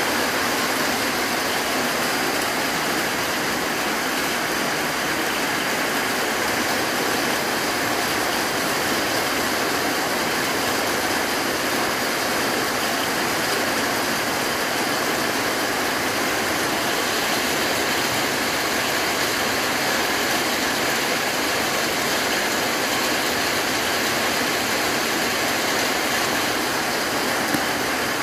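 Steady rain shower falling on a corrugated roof and streaming off its edge, a continuous even hiss with one brief tick near the end.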